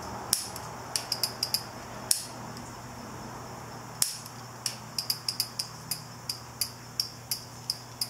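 Turn signal flasher relay of a 2001 Honda Shadow VLX 600 clicking erratically as it is wiggled in the hand. Sharp clicks come in uneven runs, some in quick succession and some a second or more apart, instead of a steady flash rhythm: the relay is failing.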